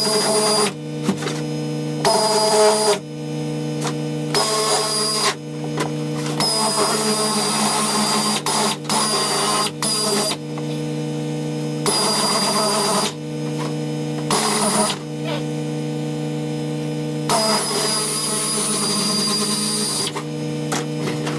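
Pneumatic sheet-metal cutter chattering through sheet metal in repeated runs of a second or two, with short pauses between, over a steady hum.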